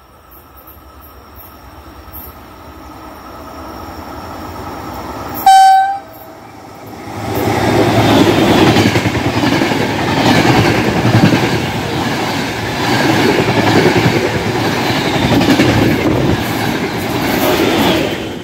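Double-headed E403 electric locomotives hauling an Intercity Notte night train, growing louder as they approach. The lead locomotive gives one short horn blast about five and a half seconds in. The locomotives and coaches then pass through the station with a loud rumble of wheels on rails, which falls away sharply near the end as the last coach goes by.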